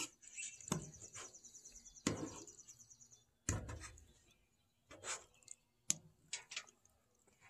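A metal fork tapping and scraping on a plate several times as food is picked up. A songbird sings one fast, high trill over about the first three seconds.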